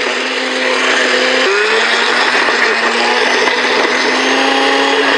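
Countertop blender running steadily with its lid held down, its motor whine dropping slightly in pitch about one and a half seconds in.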